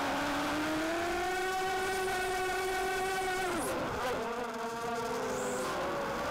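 FPV racing quadcopter's motors and propellers whining, heard from the onboard camera. The pitch rises and holds, drops sharply about three and a half seconds in as the throttle comes off for a flip, then climbs again.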